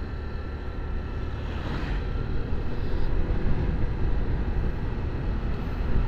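Motor scooter underway at steady speed: a Honda Click 125i's small engine running, with a continuous low rumble of riding noise.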